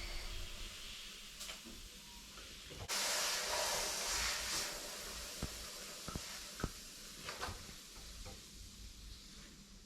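Air hissing from the motorcycle's inner tube and tire, starting suddenly about three seconds in and fading over the next few seconds, with a few light clicks. The rider puts it down to a hole he pinched in the inner tube.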